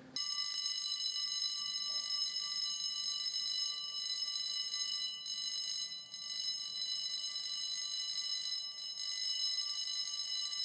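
An alarm ringing without a break, a shrill steady ring that starts abruptly at the very beginning.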